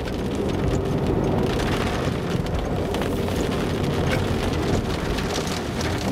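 Raindrops striking the windshield and roof of a moving car as many separate ticks, over steady road and engine noise inside the cabin.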